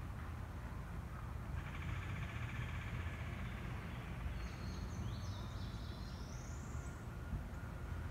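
Wild birds singing: a rapid buzzy trill starting about one and a half seconds in, then higher, sweeping chirps, over a steady low rumble.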